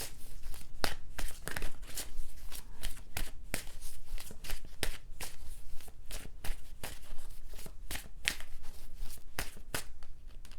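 Tarot deck being shuffled by hand, a quick run of crisp card riffles and slaps with no pause.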